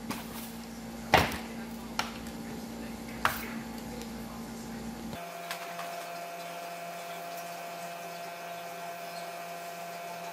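An HP laptop being turned over and set down on a hard tabletop: four knocks in the first three and a half seconds, the loudest just over a second in. After that comes a steady hum with a few even tones.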